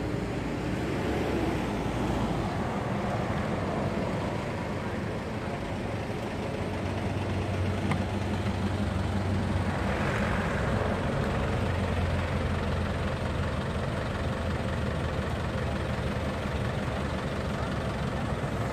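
Steady low hum of a motor vehicle engine running, over an even haze of road noise.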